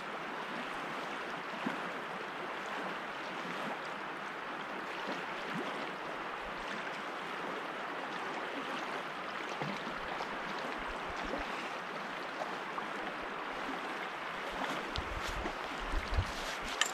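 River current flowing in a steady, even rush of water noise, with a few low thumps near the end.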